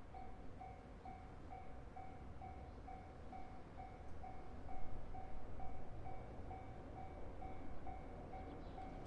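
Japanese level-crossing warning bell ringing: a clear electronic "kan-kan" tone pulsing evenly about twice a second. Beneath it runs a low train rumble that swells a little around the middle.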